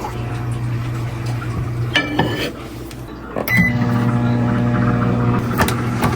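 Microwave oven running with a steady hum, which stops about two seconds in with a click and short beeps, then starts up again about a second and a half later.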